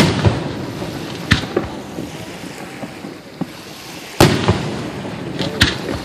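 Fireworks shells bursting: a loud bang at the start and another about four seconds in, with smaller cracks between, each trailing off in a rumble.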